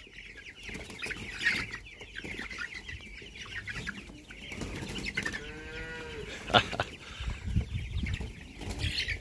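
A flock of young broiler chicks cheeping busily as they pour out of their cage. A short drawn-out vocal call rises and falls a little past halfway, with a few light knocks.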